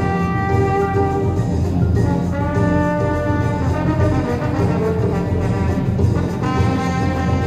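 Instrumental music led by brass, playing long held notes in groups over a dense, steady low accompaniment.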